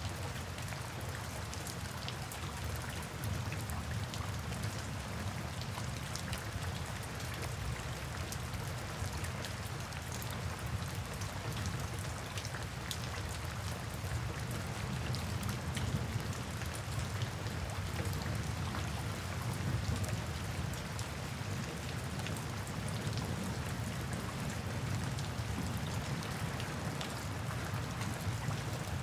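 Steady rain falling, with many separate drop hits heard as small ticks over an even hiss and a low rumble.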